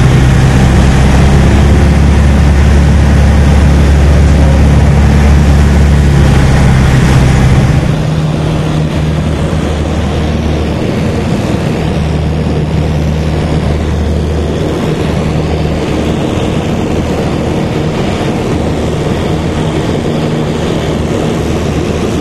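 Small propeller plane's engine and propeller running steadily, heard loud from inside the cabin. About eight seconds in the sound drops a little in level and its tone shifts.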